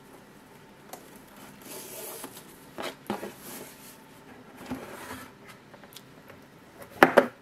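A satin ribbon being pulled loose and the lid of a rigid cardboard gift box being lifted off, in a few scraping, rubbing swishes. Near the end there is a brief, louder burst of handling noise.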